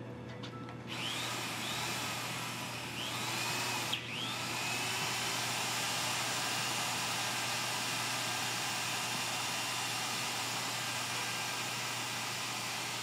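Electric drill turning an auger, grinding steadily through hard concretion of sand, sediment and iron corrosion inside a cannon's bore. It starts about a second in with a few short squeals, and there is a sharp knock about four seconds in.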